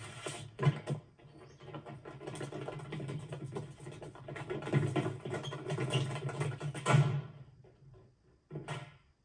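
Music mixed with quick clattering knocks. It dies away about eight seconds in, and one short burst follows near the end.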